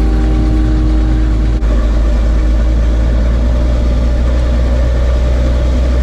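A truck's engine running as it drives along a dirt road, heard from the open cargo bed: a loud, steady low rumble.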